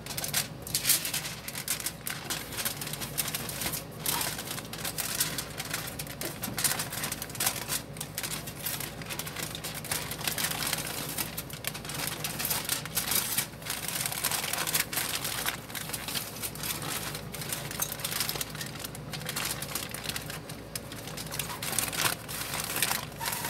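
Aluminium foil being folded over and crimped shut by hand around a food packet: continuous, irregular crinkling and crackling.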